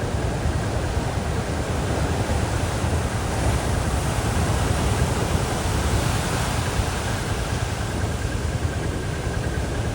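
Steady rushing noise of wind and water with a deep, even rumble underneath.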